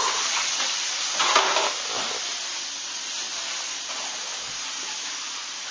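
Food sizzling as it fries in a skillet on the stove: a steady hiss, with a brief louder clatter about a second and a half in, growing a little fainter after about two seconds.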